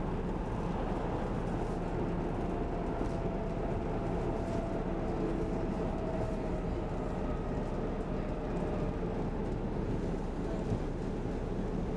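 Steady running noise of an SL X10 electric commuter train at speed, heard from inside the passenger car: an even rumble, with a faint high tone that comes in a few seconds in and fades out near the end.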